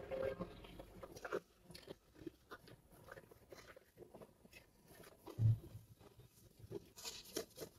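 Table knife cutting through a pancake on a plate: faint, scattered clicks and scrapes of the blade against the plate, with one dull thump about five and a half seconds in.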